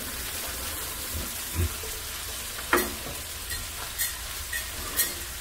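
Fried cabbage with onion and bacon sizzling in oil and butter in a frying pan, stirred with a wooden spoon, which knocks against the pan a few times.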